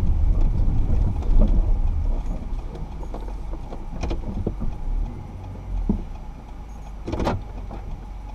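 Low rumble inside a vehicle cabin, strongest for the first couple of seconds and then easing off, with a few small clicks and one sharper knock about seven seconds in.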